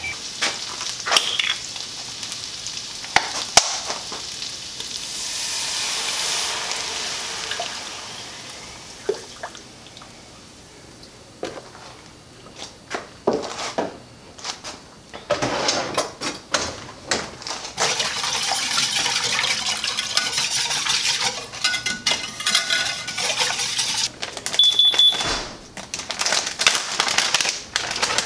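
Making Alfredo sauce in a stainless steel skillet: hissing and sizzling in the pan, with many clinks and knocks of utensils and containers and liquid stirred in. The hiss and clatter are busier in the second half, as the cream and cheese go in.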